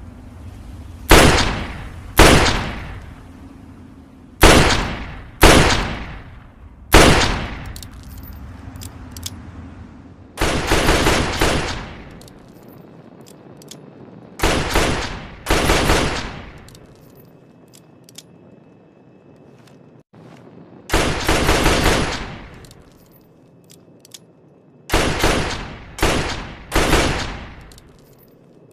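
.32 revolver firing: single loud shots about a second apart, each trailing off over about a second, broken by two quick strings of rapid shots, one about ten seconds in and one about twenty-one seconds in. Faint clicks sound between some shots.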